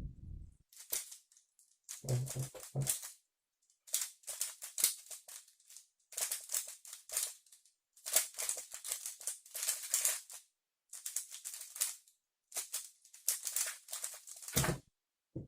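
3x3 Rubik's-type speedcube being turned fast during a timed solve: its plastic layers click and clatter in quick bursts of turns with short pauses between them. There is a thump near the end.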